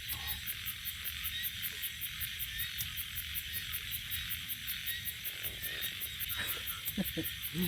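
Night-time chorus of frogs and insects near a stream: a steady buzzing drone with a high pulsing about four times a second.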